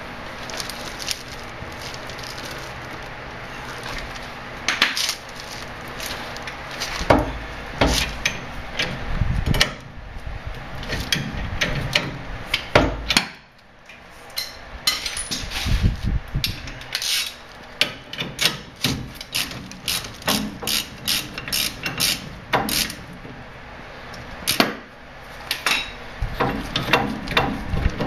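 Metal clicks and knocks from hand tools working a C-frame ball joint press on the steering knuckle of a Dana 30 front axle. A few heavier knocks come in the first half, and quicker, denser clicking follows in the second half.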